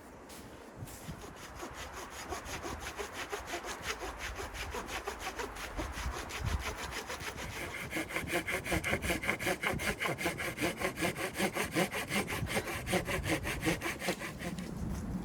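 Hand saw cutting through wood in quick, even back-and-forth strokes that start about a second in and grow louder as the cut goes on.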